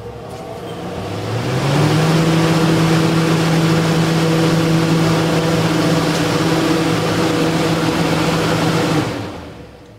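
Blower door fan (Blower Door 3, 110 V, with Ring A) pulling air out of a house. It spins up over the first two seconds with a rising hum, runs at full speed with a loud, steady rush of air, then winds down about nine seconds in. Even at full fan speed the building pressure stays under 2 Pa, so the fan cannot reach its 60 Pa test target.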